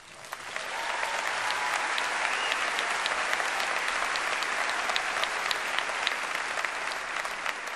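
A large audience applauding, swelling over about the first second and then holding steady.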